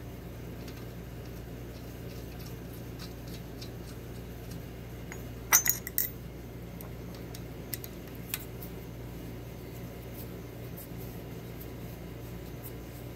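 A few sharp metal-on-metal clinks of small steel hand tools against the lathe's steel parts: three close together about five and a half seconds in, then two lighter ones a couple of seconds later. A steady low hum runs underneath.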